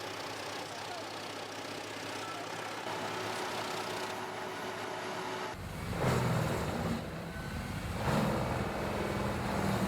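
Heavy wood-processing machinery running with a steady mechanical noise; about five and a half seconds in it switches abruptly to a deeper engine rumble that grows louder twice.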